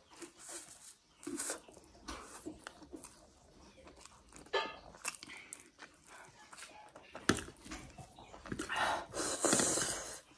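Close-up eating sounds of spicy Korean ramen noodles: slurping and chewing in short irregular bursts, with a sharp clink of a metal fork or spoon on the plate about seven seconds in. The loudest slurping comes in the last couple of seconds.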